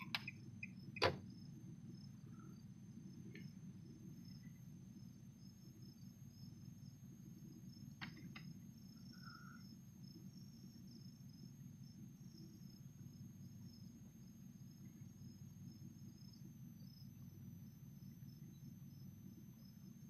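Faint steady low hum with a thin, high, insect-like chirring over it; a sharp click about a second in and a softer one about eight seconds in.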